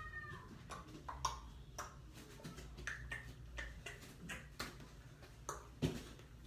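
Wet slime being worked in the hands, giving irregular small clicks and pops, a few a second, with one heavier knock near the end.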